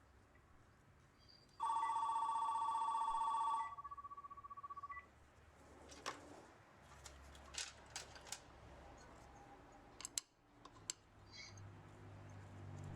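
A telephone ringer sounding once for about two seconds, a warbling two-tone ring, trailing off fainter; after it, scattered light clicks and knocks.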